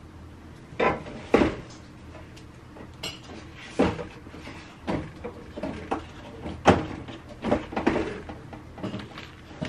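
Kitchen handling sounds: a string of short, irregular knocks and clunks as containers and utensils are picked up and set down and a cupboard or lid is opened and closed.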